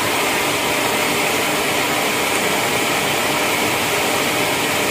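A 20-horsepower electric motor running steadily at speed: an even running noise with a faint steady hum underneath.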